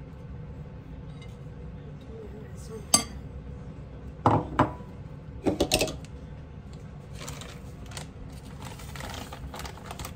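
Metal spoon knocking and clinking against a glass mixing bowl while thick batter is spooned over a skewered hot dog. One sharp clink about three seconds in, then a few quick knocks over the next three seconds, with softer scraping after.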